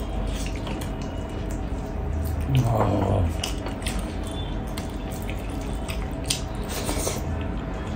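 Wet chewing and mouth sounds of someone eating spicy pork leg pickle with rice: a scattered run of small wet clicks and smacks, with a brief low hum about three seconds in.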